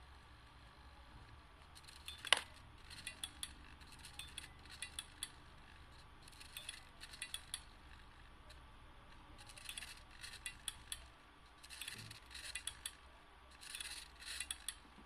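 Small hobby servo in a scrap-built gripper, its gear train ticking and chattering in short jerky bursts as it follows the finger-mounted potentiometer, in several groups separated by pauses. A single sharp click about two seconds in is the loudest sound.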